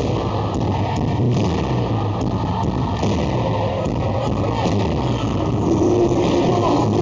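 A live rock-style worship band playing loudly, with guitars and a heavy, muddy low end and no distinct separate sounds.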